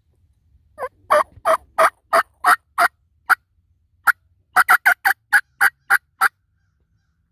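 Series of turkey yelps: about eight evenly spaced notes, a short pause, then a quicker run of about eight more.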